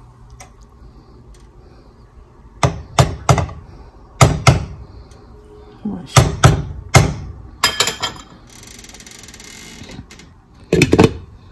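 Slotted metal serving spoon knocking and clinking against the pot and plate in short clusters of sharp taps while rice pulao is dished out. A brief scraping rustle comes between the last two clusters.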